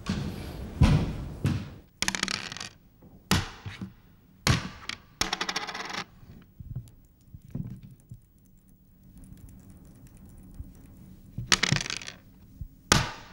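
Backgammon being played on a small wooden board: dice and checkers clattering and clacking down in a series of sharp wooden knocks, with a longer run of rapid rattling about five seconds in, a quieter stretch in the middle, and more clatters near the end.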